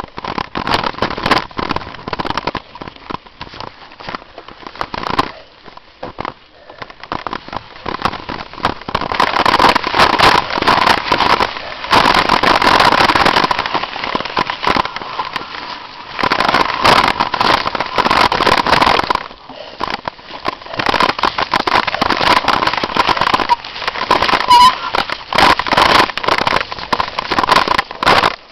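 Mountain bike running fast down a rough dirt forest trail, heard from a camera carried on the ride: a dense, continuous run of crackling clicks, rattles and knocks from the bumpy ground. It is sparser for the first several seconds, then louder from about a third of the way in.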